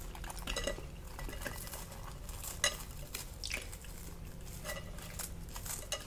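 Crisp deep-fried batter on a sausage skewer crackling as fingers tear and pull it apart: a run of small, irregular crunches and clicks, a couple louder ones in the middle.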